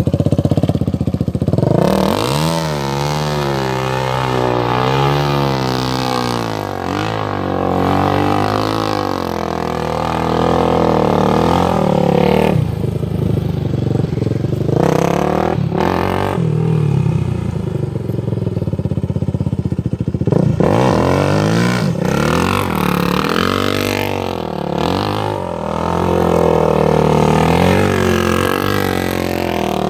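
Suzuki LTR450 ATV's single-cylinder four-stroke engine running and being revved, its pitch rising and falling again and again. It eases to lower, duller running for several seconds in the middle before revving up again.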